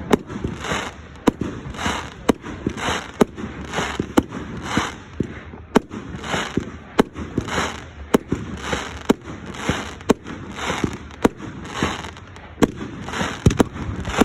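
Fireworks going off in a rapid, unbroken series of sharp bangs, about two a second, with a rushing hiss between the bangs.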